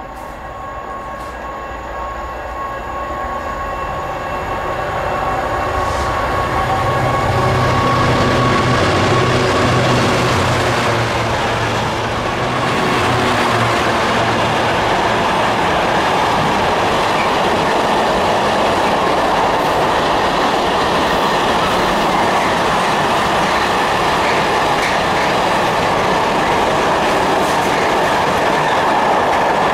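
GB Railfreight Class 66 diesel locomotive with its two-stroke V12 engine, growing louder as it approaches and passes about ten seconds in, hauling a container freight train. A steady rumble of container wagons rolling past over the rails follows.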